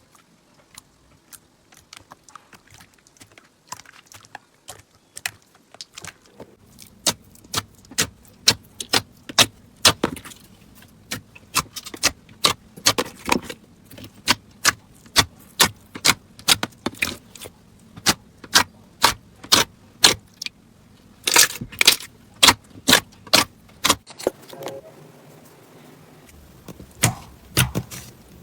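Crunchy slime being squeezed and pressed, giving sharp crackling clicks and pops. They come sparsely at first, then several a second from about six seconds in.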